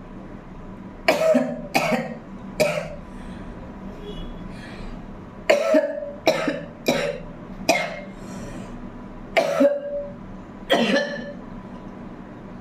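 A woman coughing in three fits, about nine coughs in all, each short and sudden: the cough of a heavy cold.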